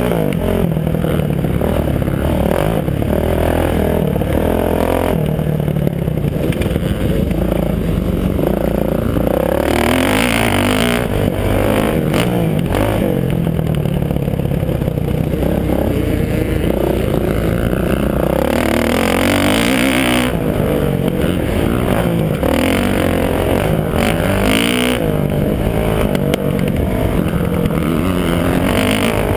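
Kawasaki KX450F dirt bike's single-cylinder four-stroke engine at race pace, heard close up from a helmet camera, its pitch rising and falling over and over as the throttle is opened and closed.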